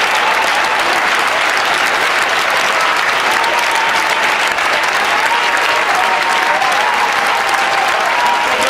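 Large stadium crowd applauding and cheering, a loud, steady wash of clapping, with single voices calling out over it now and then.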